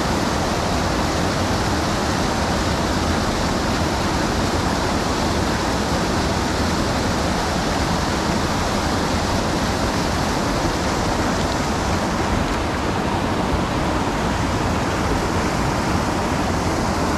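Steady rushing of a creek's flowing current, an even noise that holds level throughout.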